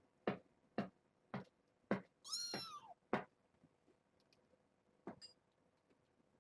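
A run of sharp taps about twice a second, with one high-pitched kitten meow, rising then falling, about two and a half seconds in. A single faint tap follows near five seconds.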